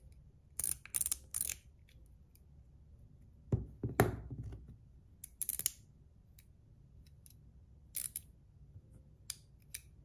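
Zirconium Metal Toys DZ Top D fidget being flicked by hand: its metal bars pivot and snap into place with scattered sharp clicks, the loudest pair of clacks about four seconds in.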